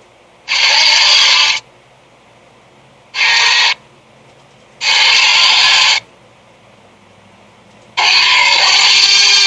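Cartoon creature sound effects for the Squidapus: four separate harsh, noisy cries, each under a second to a bit over a second long, with short gaps between. The last one starts near the end and runs on.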